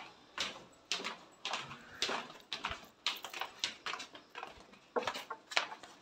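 Footsteps on a hard floor, about two steps a second, each one a short, sharp slap.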